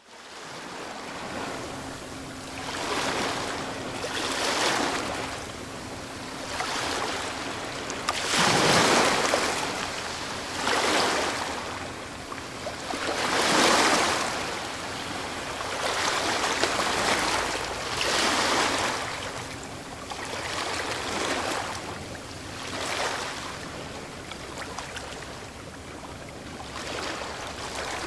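Ocean waves breaking and washing on the shore in repeated swells, a rushing surge every few seconds over a steady hiss of surf. The biggest waves break about nine and fourteen seconds in.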